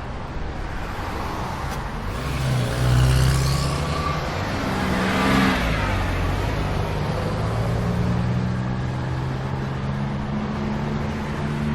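Road traffic: motor vehicles passing with engine hum, one pass swelling loudest about five seconds in, then a steady engine drone.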